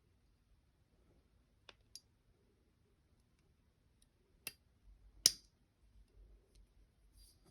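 A few sharp metallic clicks of Glock 29 pistol parts being handled during disassembly or reassembly: two light clicks about two seconds in, then two louder ones around four and a half and five seconds in, the last the loudest.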